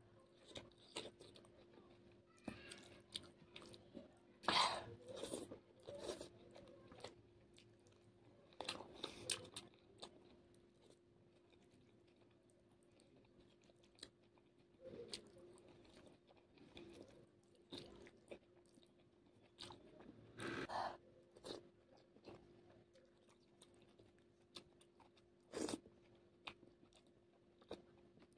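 Close-miked chewing and biting of Maggi masala noodles eaten by hand, with occasional crunchy bites, coming in scattered bursts with quiet stretches between. A faint steady hum lies underneath.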